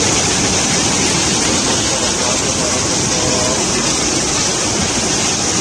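Fast brown floodwater rushing through a street, a loud, steady wash of water noise.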